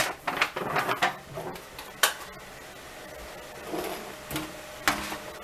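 Scattered clicks and light knocks of kitchen pans and dishes being handled and set down, with the sharpest click about two seconds in and a few more near the end.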